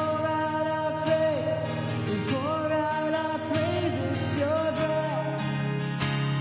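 A man singing with held, gliding notes while strumming a steady rhythm on an acoustic guitar.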